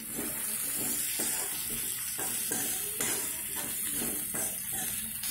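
Slotted steel spoon stirring and scraping flattened rice and peas around a metal kadhai, with repeated irregular scrapes over a light, steady sizzle from the hot pan.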